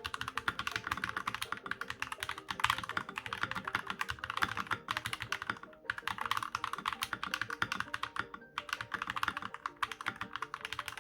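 Fast typing on an Akko 3068B Plus mechanical keyboard with gray linear switches: a dense, rapid run of key clicks, broken by short pauses a few times.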